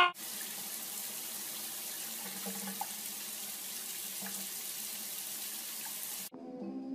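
Running water pouring steadily onto a cat standing in a bathtub, an even hiss and splash that stops abruptly near the end.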